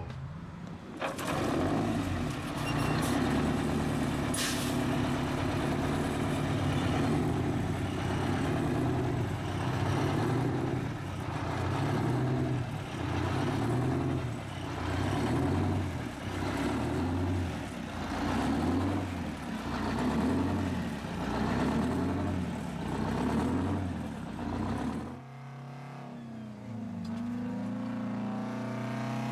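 Supercharged two-stroke Detroit Diesel V engine in a rat-rod GMC 7800 truck, revved up and let back down over and over, about every two seconds. Near the end it gives way to a quieter, steadier engine drone heard from the cab while driving.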